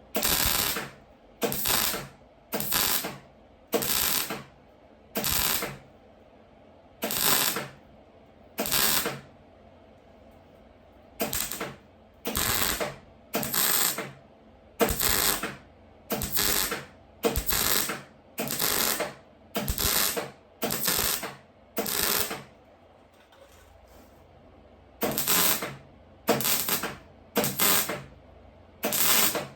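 Welder laying short stitch welds on car body sheet metal: about twenty brief bursts of welding noise, each under a second and a second or so apart, with a pause of a few seconds a little past the two-thirds mark.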